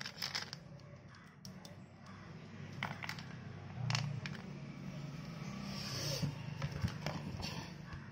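Small clicks and scrapes of fingers handling a printed circuit board and bending diode wire leads, scattered irregularly over a steady low background hum.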